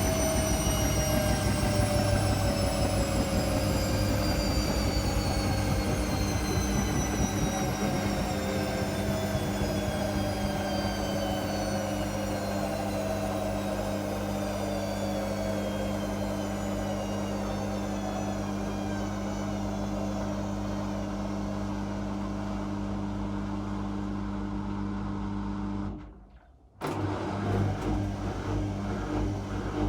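Whirlpool Indiana 1400 washing machine winding down from a spin: a motor whine falling steadily in pitch over a steady low hum as the drum slows. Near the end the sound cuts out for about a second, then the machine runs again with a pulsing rhythm.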